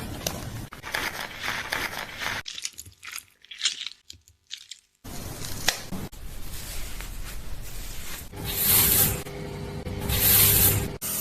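Close-up hair-washing sounds: fingers scratching and scrubbing hair and scalp, rustling and crackling. A short near-quiet pause comes a few seconds in, and two loud bursts of spraying hiss come near the end.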